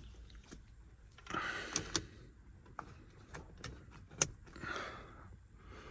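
Small handling sounds at a car's steering column: scattered sharp plastic clicks and two brief rustles as an electrical connector is plugged in behind the steering wheel.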